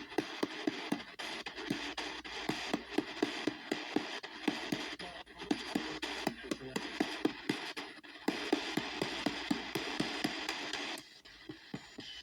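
P-SB7T spirit box sweeping the AM band every 250 ms: radio static chopped into a rapid run of clicks and snatches of broadcast, about four a second. The hiss drops noticeably lower about eleven seconds in while the clicking goes on.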